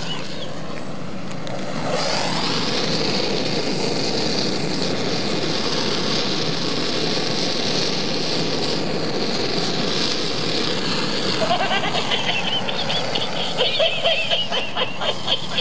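Cartridge gas blowtorch playing its flame on a plush toy, a steady hiss that starts about two seconds in and cuts off after about ten seconds. It is followed near the end by a run of short, irregular pulses.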